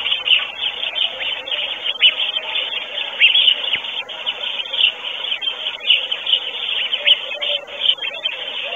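Small songbirds singing in a chorus: many overlapping quick chirps and short falling whistles, none standing out for long.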